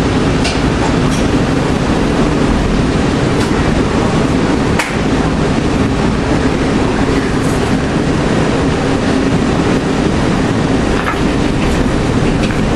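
Steady rumbling noise inside the car of the LINK airport people-mover train while it stands at a station, with a single sharp click about five seconds in.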